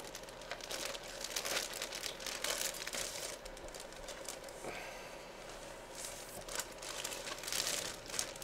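Clear plastic packaging crinkling as it is handled, a run of irregular crackles.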